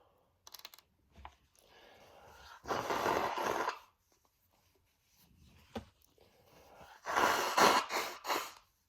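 A man sneezing twice. Each sneeze comes after a rising, gasping in-breath; the first is one long burst, the second, louder, breaks into several quick bursts.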